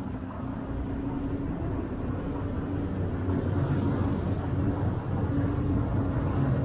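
Tour boat's engine running with a steady low hum, growing a little louder about halfway through.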